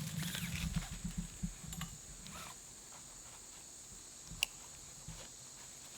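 Gear handling as a bow is hooked up to its rope: light rustling and small clicks for the first couple of seconds, then one sharp metallic click about four and a half seconds in.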